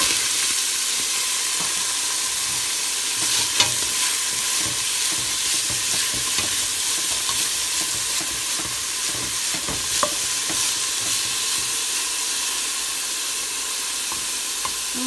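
Chopped collard green stems sizzling in hot oil in a stainless steel pot, starting loudly as they drop in, then stirred with a spoon. There are a couple of sharp knocks during the stirring.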